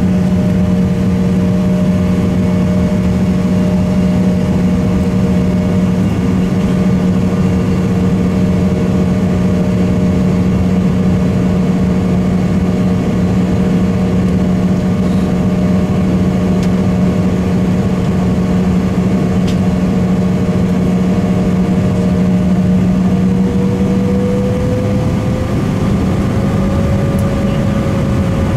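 Cabin noise of an Embraer E170 airliner taxiing, its GE CF34 turbofan engines at low thrust: a loud, steady hum with a higher tone that rises slightly in pitch about 24 seconds in.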